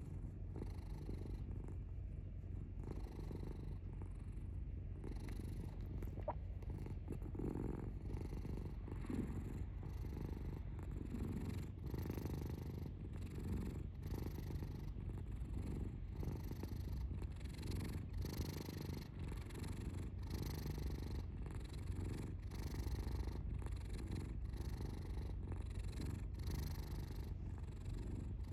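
Domestic cat purring steadily, the purr pulsing about once a second.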